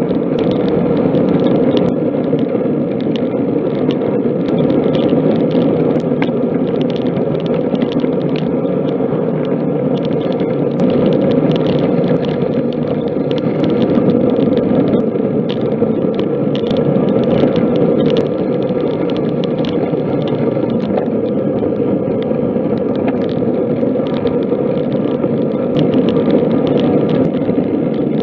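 Steady rush of wind and tyre noise on a camera mounted on a moving road bike, with many faint scattered ticks.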